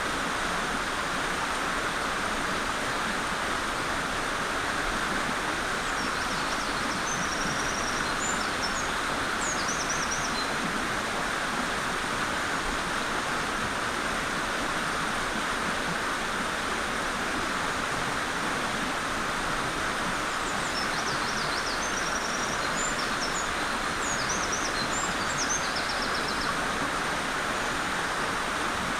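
Mountain stream rushing steadily. A Eurasian wren sings two high, rapid, trilling songs over it, about six seconds in and again about twenty seconds in.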